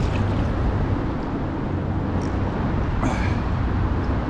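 Steady rush of flowing stream water, loud and heavy in the low end, with one short, sharper sound about three seconds in.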